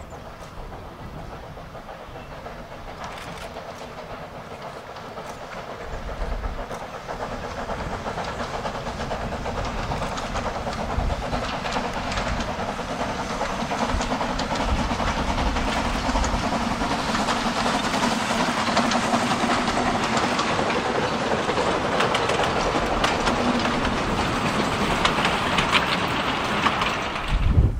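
Narrow-gauge steam locomotive hauling a short mixed train past, working steam with its wheels and wagons clattering on the track, growing louder as it approaches and passes. The sound cuts off suddenly near the end.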